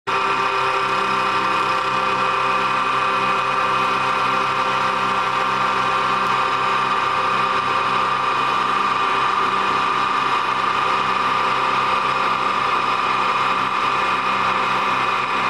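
Automatic CNC wood lathe running steadily while turning a wooden baseball bat, a constant machine whine with several held tones.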